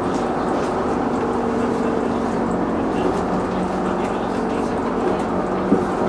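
Shuttle bus driving, heard from inside the cabin: a steady engine drone and road rumble, with a light knock or two near the end.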